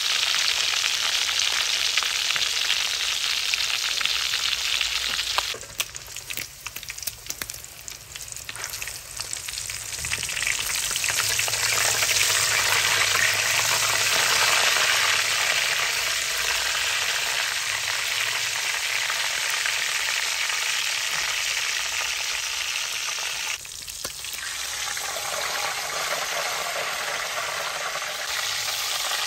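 Boiled pig intestine deep-frying in hot oil in a large pan: a dense, steady sizzle. A little past five seconds it drops away abruptly to a quieter sizzle with scattered pops, then builds back to full strength.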